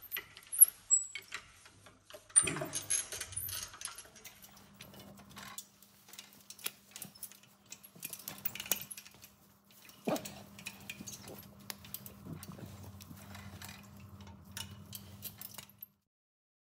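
Record No. 202 pipe cutter being turned around half-inch low carbon steel pipe in a chain pipe vise: irregular metallic clicks and clinks as the cutter rotates and the cutting wheel bites, with a few louder knocks. A steady low hum runs under it from about four seconds in, and the sound stops near the end.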